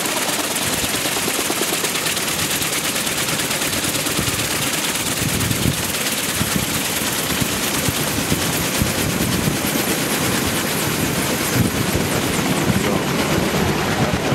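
Kaman K-MAX helicopter with intermeshing twin rotors lifting off and climbing away. Its rotors beat in a loud, rapid, steady chop.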